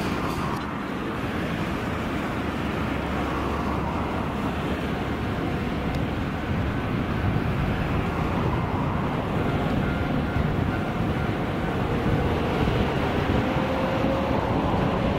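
Steady outdoor rumble of trains and traffic, growing slightly louder, as a JNR Class DD51 diesel-hydraulic locomotive approaches. A faint hum rises and then falls over the last few seconds.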